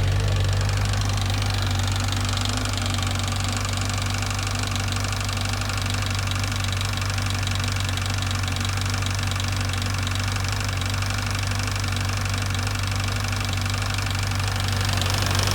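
Honda CBF1000 F's inline-four engine idling steadily with a rattling clatter from the engine.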